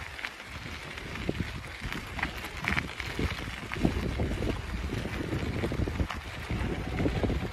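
Wind buffeting the phone's microphone during a bike ride, a steady rumble with scattered small knocks and rattles from riding over bumpy ground.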